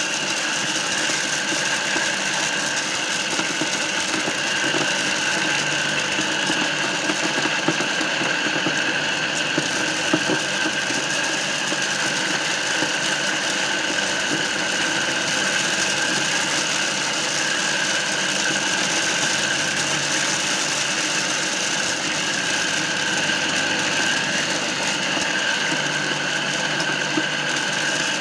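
Homemade mini corn sheller, belt-driven by a recycled water-pump electric motor, running steadily while corn cobs are fed in and stripped of their kernels. It makes a steady whine over a dense mechanical rattle, with a few small clicks.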